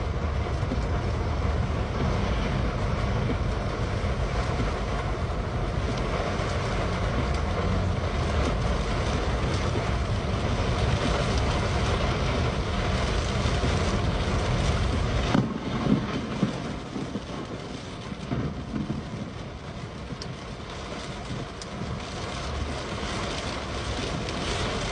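Heavy rain pelting a moving car, heard from inside the cabin along with steady road and engine rumble. About fifteen seconds in the low rumble falls away, and a few sharp knocks sound over the rain.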